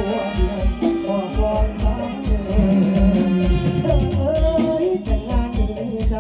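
Male singer singing an Isan-style song into a microphone over a live band, with keyboard and a steady kick-drum beat.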